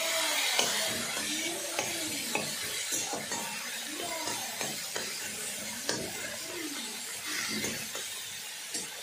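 Spatula stirring and scraping food in a frying pan, with a sizzle under it, squeaky scrapes and several sharp knocks against the pan.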